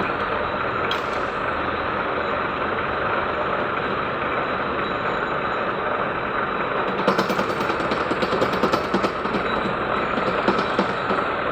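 Metal lathe running and machining, with a steady rough grinding noise. About seven seconds in, a rapid crackle of sharp clicks joins it.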